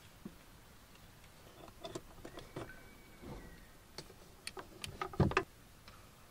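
Light clicks and knocks of a small electric fan heater and its power cord being handled and set down, with a cluster of louder clicks and a dull knock about five seconds in. The heater's fan is not running.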